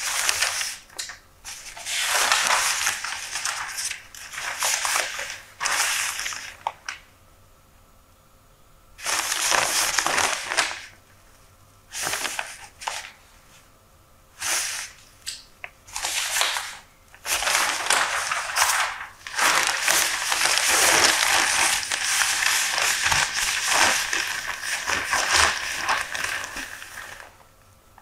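Newspaper pages being turned and handled, the paper rustling and crinkling in separate bursts with short pauses, then in a long unbroken stretch of rustling for the last third or so.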